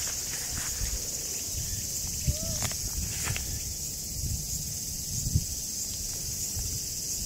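Steady high-pitched drone of insects, over a low rumble on the microphone, with two short knocks a little over two seconds in and again about five seconds in.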